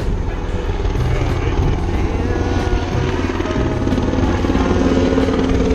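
Loud propeller-driven engine running steadily, with a fast chopping pulse, and music playing underneath.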